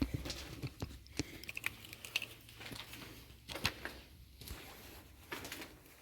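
Footsteps crunching on grit and debris: a scatter of small, irregular clicks and scrapes.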